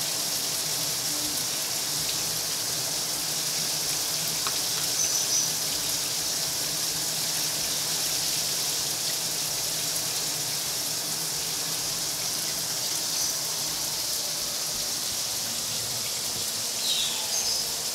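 Overhead shower running steadily, its spray of water falling and splashing on the tiles.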